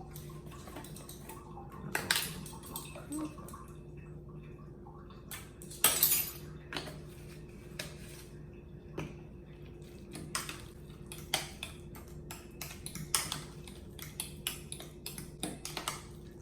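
Metal utensils clinking and scraping against a bowl at irregular moments, with the loudest scrapes about two and six seconds in, as garlic powder is spooned into guacamole and stirred.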